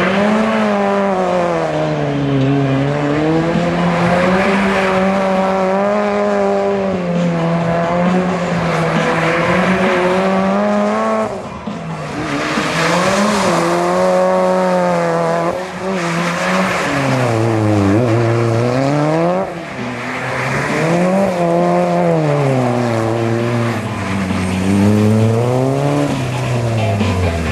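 Mitsubishi Lancer Evolution rally car's engine revving up and down over and over as the car is slid around a tight course on wet, slushy tarmac. The revs drop away briefly about 11, 16 and 19 seconds in.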